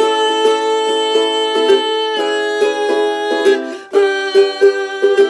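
Ukulele strummed in a steady rhythm with a woman's voice holding long sung notes; the chord changes about two seconds in and again near four seconds.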